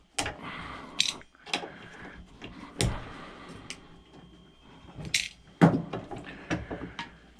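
Irregular sharp metallic clicks and clinks of spark plugs and small scrap metal pieces being handled and sorted.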